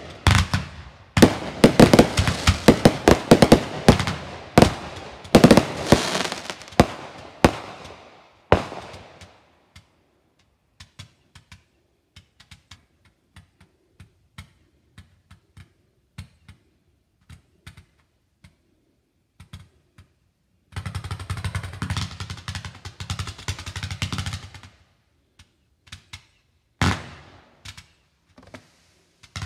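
Consumer fireworks going off: a rapid barrage of loud bangs and crackling for about the first eight seconds, then a lull with only faint scattered crackles. Later come a few seconds of dense noisy crackling, and a single loud bang near the end.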